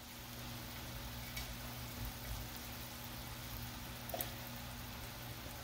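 Jaggery syrup with grated coconut boiling down in a frying pan: a faint, steady bubbling hiss with a couple of small clicks. The syrup is at a full boil, thickening as it reduces.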